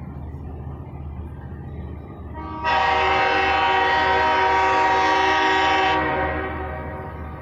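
Locomotive air horn of Long Island Rail Road dual-mode locomotive 505 (a DM30AC) sounding on approach to a grade crossing. The tail of one blast dies away at the start, then a loud, steady blast of about three seconds begins near the three-second mark and fades out, over a low rumble.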